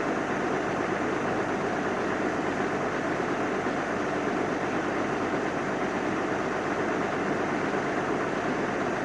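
A steady engine idling, unchanging in level.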